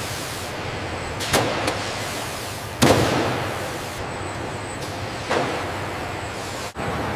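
Steady assembly-hall machinery noise with a few sudden loud hits on top. The loudest comes about three seconds in and rings on for about a second; smaller ones fall a little earlier and again near five seconds.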